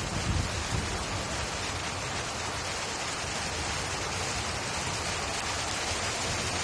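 Heavy rain falling steadily during a thunderstorm, an even hiss throughout. Some low wind rumble on the microphone fades out in the first second.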